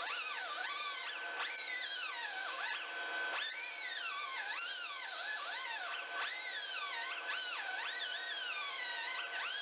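Right-angle air die grinder with a small sanding disc blending down a TIG weld on a boat propeller blade; its whine swoops up and down in pitch over and over as the disc is pressed onto the metal and eased off. A faint steady high tone runs underneath.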